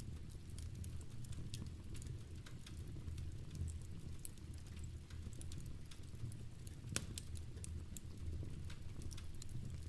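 Fireplace fire crackling with scattered small pops, one sharper crack about seven seconds in, over a steady low rumble, with rain pattering.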